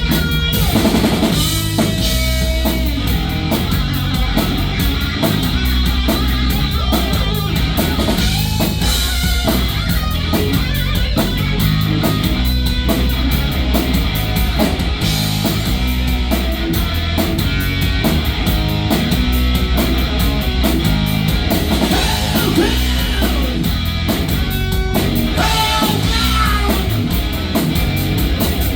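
Live rock band playing loudly: distorted electric guitars over a driving drum kit and bass, an instrumental stretch of a hard rock song with no vocals.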